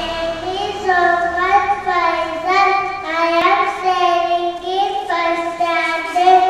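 A child singing a simple melody in short phrases of held notes.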